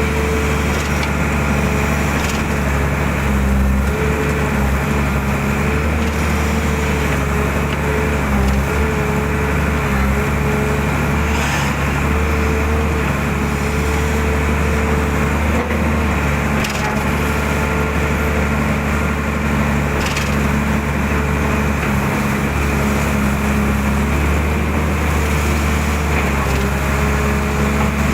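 Excavator's diesel engine running steadily under working load, with a few brief snaps and scrapes from the bucket as it clears the ditch.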